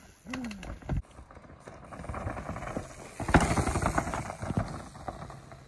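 Mountain bikes coming down a rocky dirt trail: tyres crunching over stones and the bikes rattling, loudest as a rider passes close about three seconds in.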